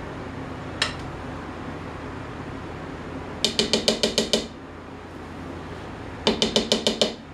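Batter-filled cake pans rapidly knocked and rattled on the counter in two quick runs of about eight knocks each, to settle the batter and shake out air bubbles. A single click about a second in.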